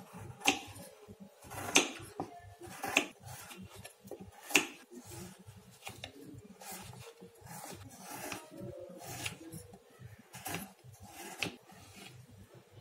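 A kitchen knife shaving and chopping a block of jaggery on a wooden chopping board: scraping cuts and sharp knocks of the blade on the board, about one a second, the loudest in the first five seconds.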